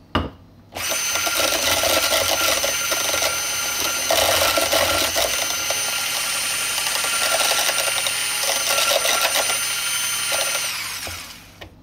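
Electric hand mixer with a whisk attachment, starting about a second in and whining steadily as it beats egg yolks, mustard and a slow stream of oil into mayonnaise, then spinning down with a falling whine near the end. A short knock comes just before it starts.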